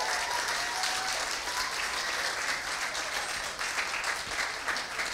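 Congregation applauding: many hands clapping steadily, tapering off slightly near the end.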